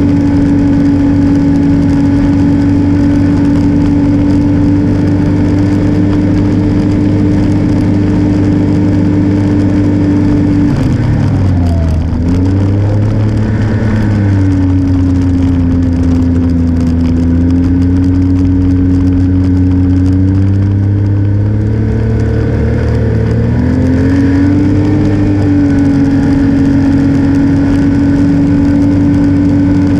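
Snowmobile engine running at steady trail speed. About eleven seconds in, the engine note drops quickly as it slows down, holds lower for a while, then climbs back up around twenty-four seconds as it speeds up again.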